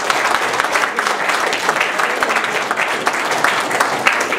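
Audience applauding: dense, steady hand clapping.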